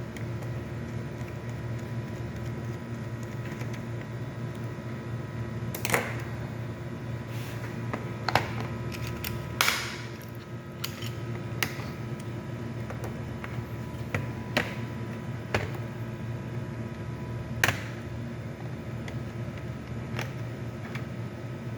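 Scattered sharp clicks and taps of hands and a tool on a laptop's plastic case, about eight over twenty seconds, over a steady low hum.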